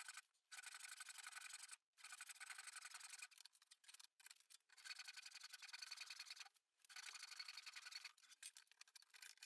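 Faint rasp of a handsaw resawing a length of softwood along its grain, in runs of strokes broken by short pauses.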